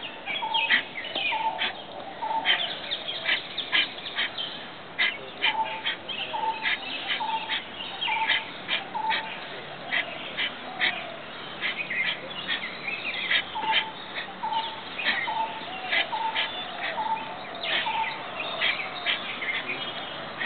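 Birds calling: several runs of short repeated notes, about one a second, over a busy chatter of higher chirps.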